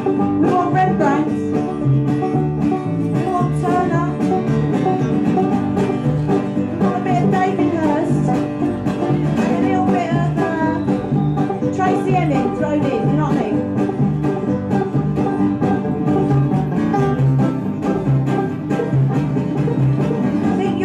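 Live acoustic band playing an upbeat bluegrass-style tune, a banjo picking over guitar and a steady upright bass line, with a woman singing along.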